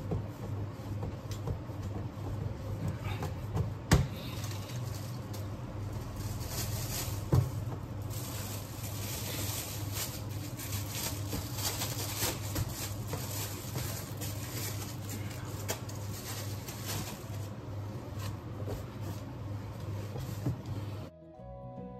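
Dough being kneaded and handled by hand on a wooden board over a steady low hum, with two sharp thumps about four and seven seconds in. Through the middle a plastic bag crinkles as the dough is handled in it. Music with mallet percussion cuts in about a second before the end.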